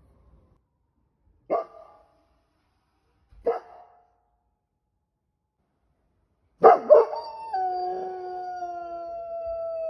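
Young golden retriever howling: two short, sharp calls about a second and a half and three and a half seconds in, then a loud start into one long howl about two-thirds through, held and slowly falling in pitch.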